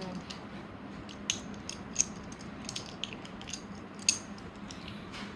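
Butterfly knife being flipped open and closed, its metal handles and blade clicking and clacking irregularly, with sharper clacks about one, two and four seconds in.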